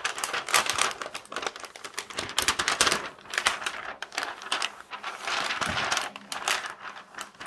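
Thick clear plastic cover film on a diamond painting canvas crinkling and crackling as hands press and slide it flat, with many irregular sharp crackles.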